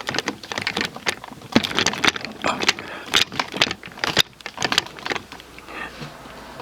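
Hard plastic parts of a Transformers combiner action figure clicking and clacking as they are handled, in quick irregular clicks.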